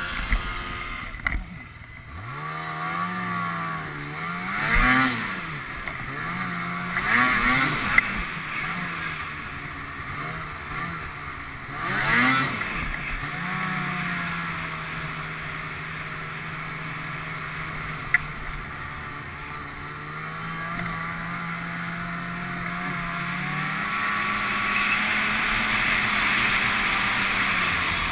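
Ski-Doo snowmobile engine running: it comes up about two seconds in, revs up and back down several times, then holds a steady drone and picks up speed near the end.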